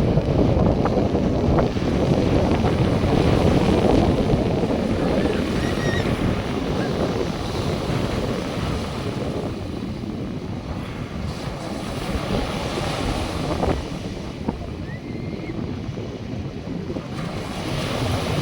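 North Sea surf washing onto the beach, with wind buffeting the microphone; the wash is louder through the first half and eases off after the middle.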